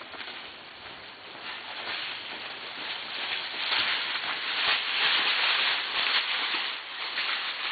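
Quarter horse's hoofbeats and scuffing on soft arena dirt, getting louder about three seconds in as the horse comes close, loudest around five seconds, then fading a little.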